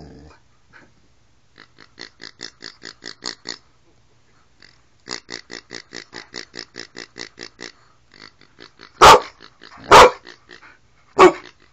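A plush pig toy's squeaker squeezed rapidly in two runs of quick, evenly spaced squeaks, then a dog barks loudly three times near the end.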